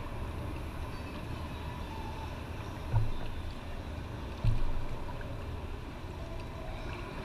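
Kayak on the water with a steady low rumble, and two dull knocks against the kayak about a second and a half apart.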